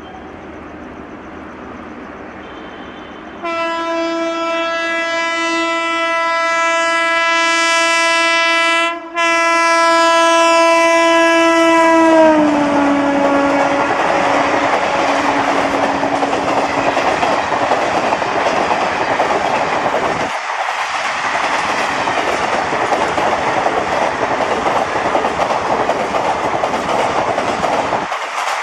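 WAP-4 electric locomotive's horn sounding one long blast from about three seconds in, briefly broken near the middle, its pitch dropping as the locomotive passes. Then the loud rush and rapid wheel clatter of the express's passenger coaches going by at speed.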